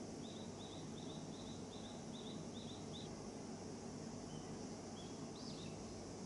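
A small bird chirping over a steady low background noise. A short, high chirp repeats about three times a second for the first three seconds, then a few scattered calls follow.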